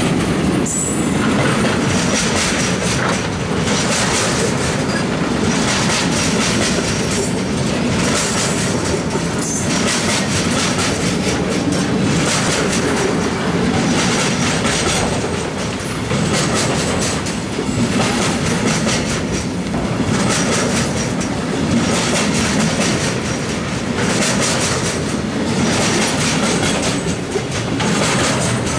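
Loaded intermodal freight wagons rolling past close by, a steady rumble of wheels on rails with the wheelsets clicking over the rail joints at a regular beat.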